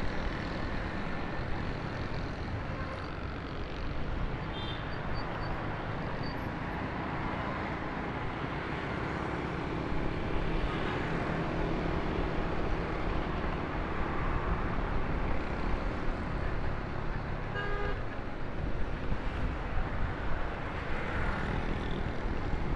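Steady road noise from riding a motorbike through city traffic: engine and wind rush with passing vehicles. A short horn beep sounds about eighteen seconds in.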